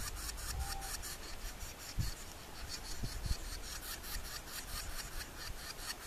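Northern flicker nestlings begging inside the nest cavity: a rapid, rhythmic rasping for about the first second and a half, then fading to a faint hiss. A few dull thumps follow.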